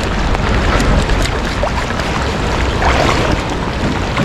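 Steady rushing noise of river water, with wind buffeting the microphone.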